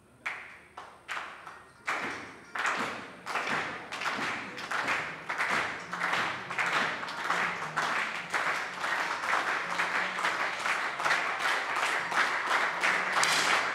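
Crowd of spectators clapping in a steady rhythm, about one clap every two-thirds of a second, sparse at first and swelling louder and denser as more people join in.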